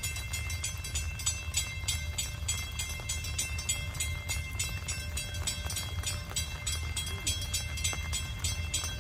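Low, steady rumble of a distant freight train approaching, with faint steady high-pitched tones and a run of light ticks over it.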